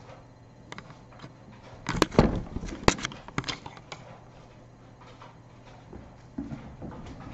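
A kitten bumping and brushing against the webcam: a burst of rough rubbing noise about two seconds in, then a sharp knock and a few lighter clicks.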